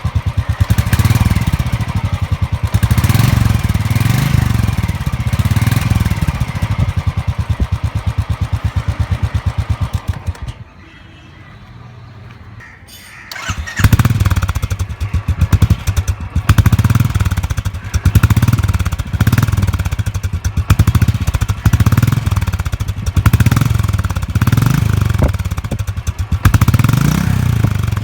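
Royal Enfield 350cc single-cylinder engine running on its stock silencer with the characteristic thump, revved in repeated short throttle blips about once a second. It stops about ten seconds in, and a few seconds later another of the same engine starts and is blipped in the same rhythm.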